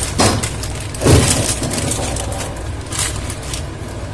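A plastic snack packet crinkling and crackling as it is handled, with two louder crackles about a quarter second and a second in, over a steady low hum.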